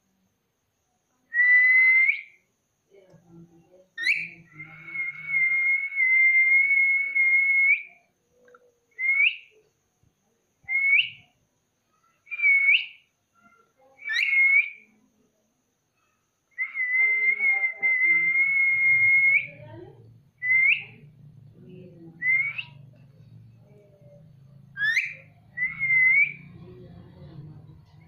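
Indian ringneck parakeet whistling: two long, level whistles of a few seconds each, and about ten short whistles that swoop upward in pitch.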